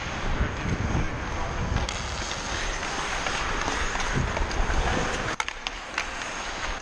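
Ice skate blades carving and scraping across the ice, a steady rushing hiss with low rumble under it, and a couple of sharp clicks a little over five seconds in.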